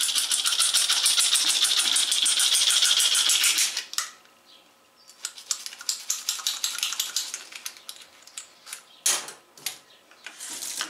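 A small straw-cleaning brush scrubbing inside the drinking tube of a guinea pig water bottle: rapid scratchy back-and-forth strokes for about four seconds, then after a short pause a second, softer bout, with a few sharp knocks near the end.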